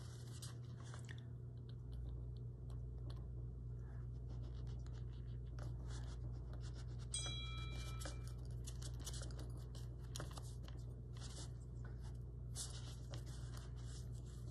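Carving knife cutting and scraping into a small wooden block in short bouts of faint scratchy strokes, making V-cuts to pop out small chips. A steady low hum runs underneath, and a brief high tone sounds about seven seconds in.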